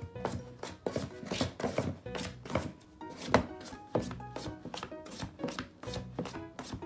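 A cat scratching at a cardboard box with its claws: a quick, irregular run of scratches against the cardboard. Background music plays along.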